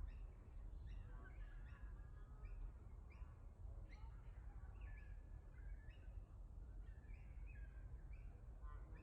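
Faint birdsong: many short chirps and calls from several birds, over a steady low rumble.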